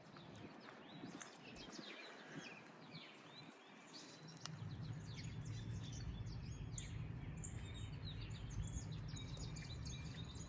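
Several songbirds chirping and singing in quick, overlapping calls. About halfway through a steady low rumble comes in under them and stays.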